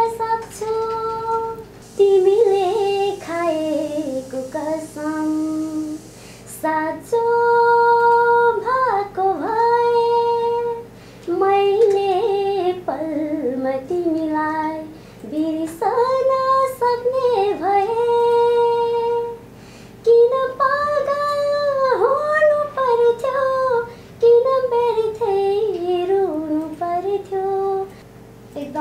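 A young woman singing a Nepali song without accompaniment, in melodic phrases of a few seconds with held notes and short breaths between them.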